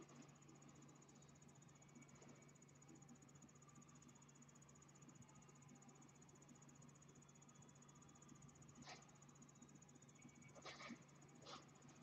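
Near silence: room tone with a steady low hum and a faint high whine. In the last few seconds come a few soft, faint rustles as kittens shift on a fabric office chair.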